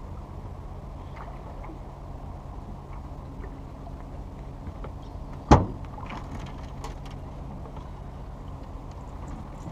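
One loud, sharp thump about halfway through, a knock on the aluminum jon boat while a bass is being fought to the boat, over a steady low rumble and hum; a few light clicks and taps follow.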